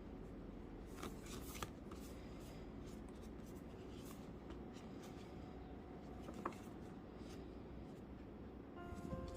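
Faint rustling and scraping of hands handling packaging during a doll unboxing, with a few light clicks or taps about a second in and again later.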